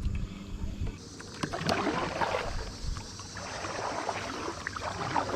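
Kayak paddle dipping into river water in repeated strokes, splashing and dripping in several bouts, with a low rumble in the first second.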